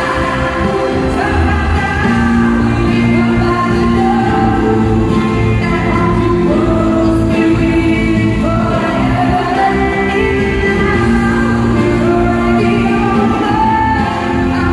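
Live pop ballad: a female lead singer sings long held notes into a microphone over full band accompaniment, heard through the arena PA in a large hall's echo.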